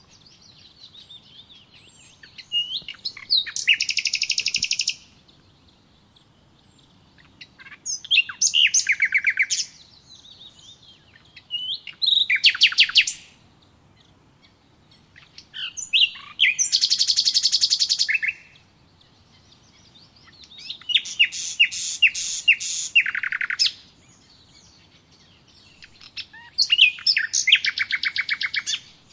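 A songbird singing: six loud phrases of rapid, trilled notes, each lasting one to two seconds and coming about every four to five seconds, with faint chirps in between.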